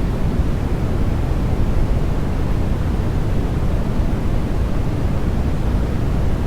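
Continuous generated white noise for baby sleep: an even, unchanging rushing hiss, heavier in the bass than in the treble.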